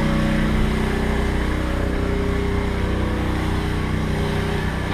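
A small engine running steadily at a constant speed, an even mechanical drone.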